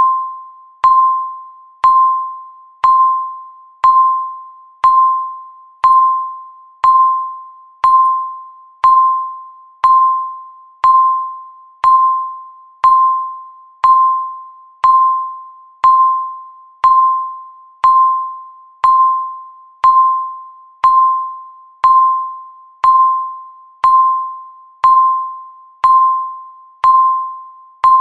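Countdown timer beeps: a single electronic tone of the same pitch, sounding once a second, each beep starting sharply and fading away before the next.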